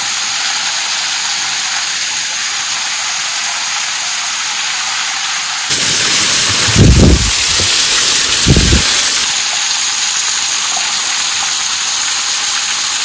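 Waterfall's falling water making a steady, loud hiss. It grows louder and fuller for a few seconds in the middle, with two low rumbling thumps about a second and a half apart.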